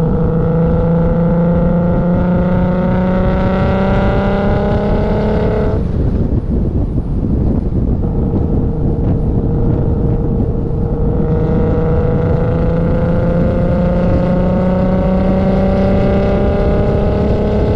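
Toyota Supra's 2JZ inline-six under hard acceleration. The engine note climbs steadily for about six seconds and falls away abruptly, as at a gear change. It runs lower for a few seconds, then climbs again through a second long pull and drops near the end.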